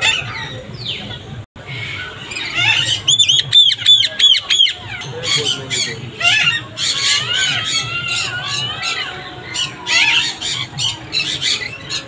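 Parrots squawking and chattering: a quick run of about eight repeated shrill squawks a few seconds in, then a mix of sharp chirps and chatter.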